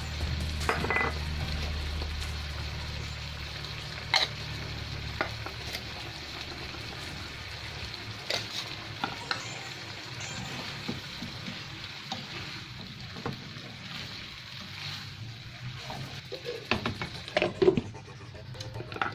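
Igado of pork liver frying in a pan while it is stirred: a steady sizzle, with the utensil knocking and scraping against the pan now and then, several knocks close together near the end.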